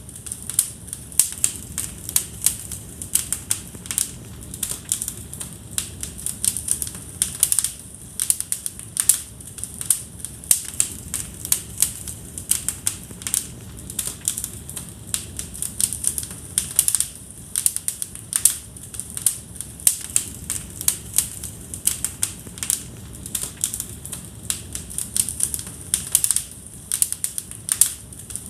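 Wood fire in a fireplace crackling, with irregular sharp pops and snaps several times a second over a low steady hiss.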